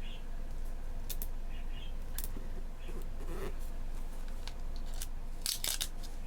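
Paper and stickers being handled on a planner page: scattered soft clicks and small crinkles, with a brief, louder crackling rustle near the end, such as a sticker being peeled or a snip of scissors.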